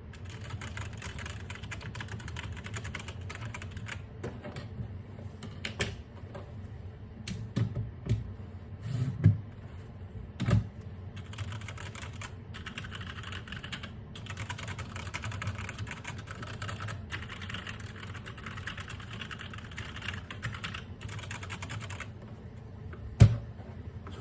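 Mechanical keyboard being typed on in a steady run of key clicks, with a few louder knocks now and then.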